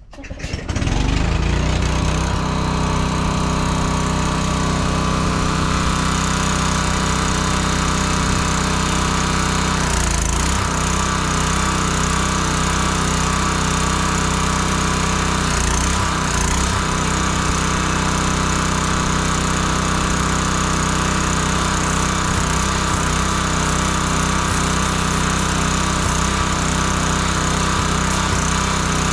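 Craftsman pressure washer's small gasoline engine running steadily, with the hiss of the pump and spray. Its note sags briefly twice, about ten and sixteen seconds in. It is running slower than the owner would like, needing the throttle set higher.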